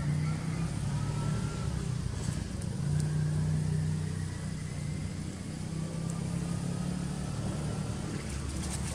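Low, steady engine hum, as of a motor running nearby, swelling slightly about three seconds in.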